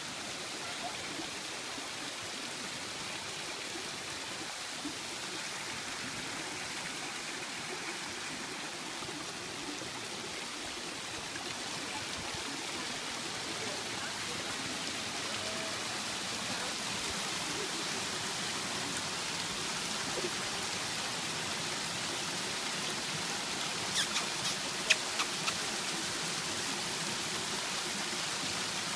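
Small garden waterfall splashing over rocks into a stream: a steady rush of water, a little louder from about halfway. A few sharp clicks sound near the end.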